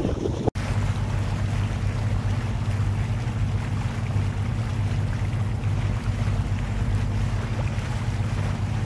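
Seawater rushing and splashing along the hull of a Leopard 38 sailing catamaran under way, over a steady low hum. The sound cuts out for an instant about half a second in.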